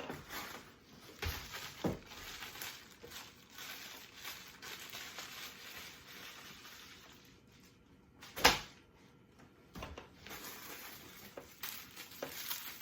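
Packaged items and plastic wrapping being handled, rustling and crinkling, with scattered small clicks and one sharp knock about eight and a half seconds in.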